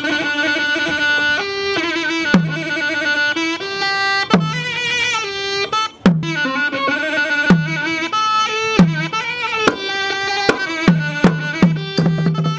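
Traditional Thai instrumental music: a held, wavering melody line over low drum strokes, which come faster near the end.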